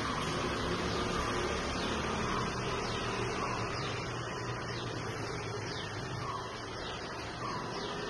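Steady outdoor background hum and hiss, with many faint, short, high chirps of birds that fall quickly in pitch, scattered through.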